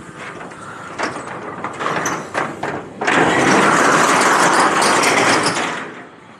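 A run of clattering knocks, then about three seconds of loud rattling rush that dies away near the end, from ice and drink cans being worked into a cooler.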